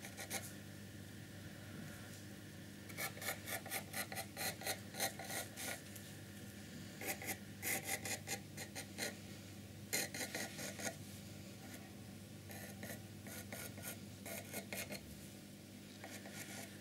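Watercolour pencil sketching on the painted surface of a box: faint, quick scratching strokes in several short runs.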